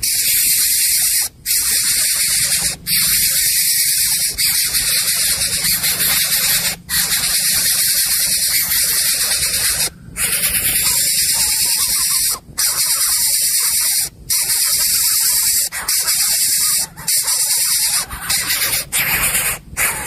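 A loud, harsh hiss that runs in long stretches, broken by brief gaps every one to four seconds.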